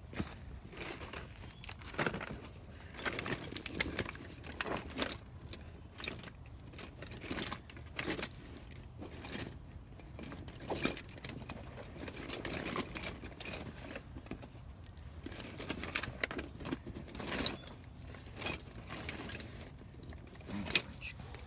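Metal hand tools and brake parts clinking and knocking irregularly, in short light strikes scattered throughout.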